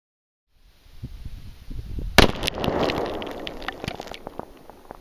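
A .30-06 armor-piercing rifle round fired into a log target, heard from near the target: one sharp, loud crack about two seconds in, followed by scattered crackling clicks that fade over the next two seconds.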